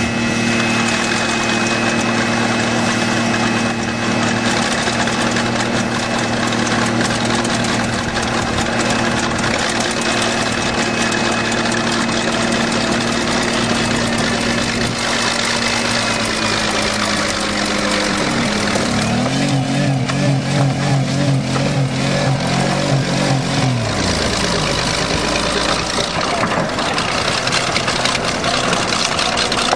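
Engines running: a Buick 3.8-litre V6 held at high revs by a piece of wood wedged in its throttle, mixed with a bulldozer's diesel engine. About two-thirds of the way in, the engine note drops and wavers for several seconds before settling again.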